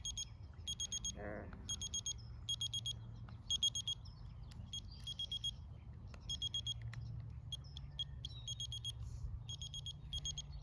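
Taylor digital kitchen timer sounding its alarm: clusters of rapid high-pitched beeps, the clusters repeating about once a second.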